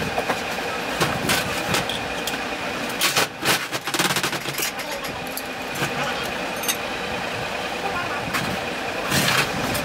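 Hand-crank sewing machine being turned and handled: light clicks and knocks from its mechanism, with a cluster of rattling clicks about three seconds in and again near the end, over a steady hum of workshop machinery.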